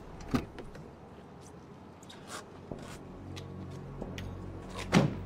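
A pickup truck's engine idling with a low steady hum that comes in about halfway, with a few soft knocks and a louder thump near the end.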